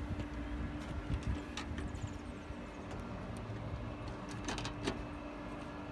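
A few faint light clicks of small metal clips being handled and fitted under a car bonnet's chrome trim strip, over a steady low hum.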